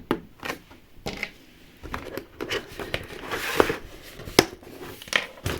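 Scattered small clicks and scrapes of hard plastic miniature kit parts being handled while a leftover plastic clip is removed from a part.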